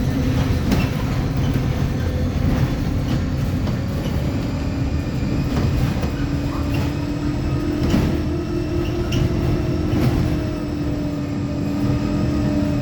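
Mercedes-Benz OF-1724L bus under way, its rear differential growling: a steady whine that rises slowly in pitch over the first two-thirds and then holds, over the low rumble of the drivetrain and short knocks and rattles of the body. The growl is the sign of a noisy, likely worn differential.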